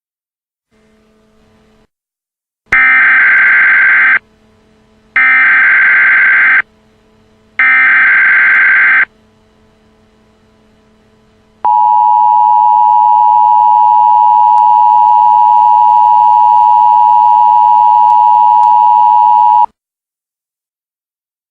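Emergency Alert System signal: three short bursts of warbling digital SAME header data, then after a pause the steady two-tone EAS attention signal, held for about eight seconds before it cuts off. A faint low hum lies under the gaps.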